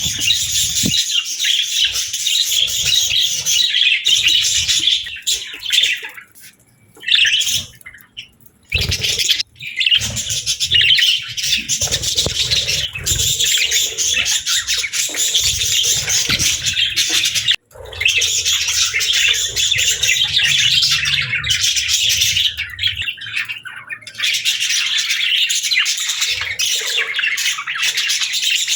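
A flock of budgerigars chirping and chattering continuously, with a few brief gaps of near quiet around a quarter of the way in and once more just past the middle.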